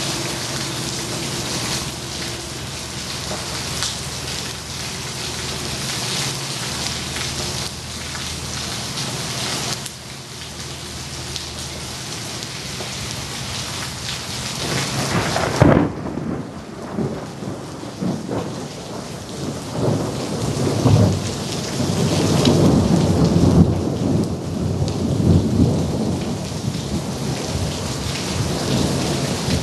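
Thunderstorm: heavy rain falls steadily with a hiss. About halfway through, a sharp thunderclap cracks, followed by long, rolling low rumbles of thunder.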